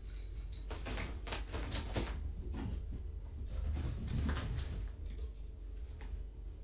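Kittens romping: a quick run of light taps and knocks, then a second run with soft thumps a few seconds in, as a kitten's paws scamper and land on the floor near the microphone.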